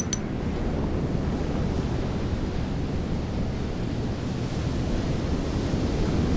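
Sea surf washing in with wind rushing over the microphone, a steady low rushing noise. A few quick ticks sound right at the start.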